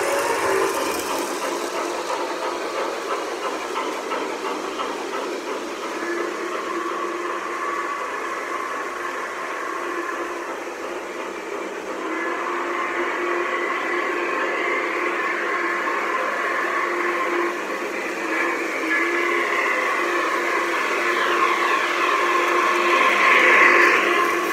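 Lionel O-scale model trains, a CNJ Blue Comet and an NKP Mallet, running on three-rail track: the rolling rumble of the cars mixed with the locomotives' electronic steam sounds, hiss and held whistle tones. The sound grows from about halfway through and is loudest near the end as the Blue Comet's passenger cars roll past close by.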